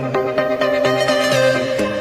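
Background music: an electronic track with a steady beat and plucked-sounding notes.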